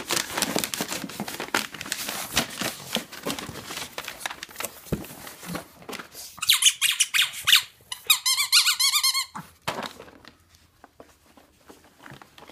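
Paper packing and a cardboard box rustling and crinkling as dogs nose through the box, then two bursts of high, wavering squeaks from a squeaky dog toy, about six and eight seconds in.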